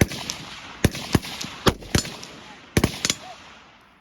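Rifle shots fired in quick, irregular strings: about eight sharp reports over three seconds, each trailing off in a short echo, with a pause of about half a second between groups.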